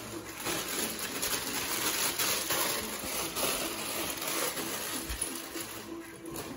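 Rustling and light clinking of items being handled at a kitchen counter while breakfast is made: a steady run of small, scattered ticks and rustles.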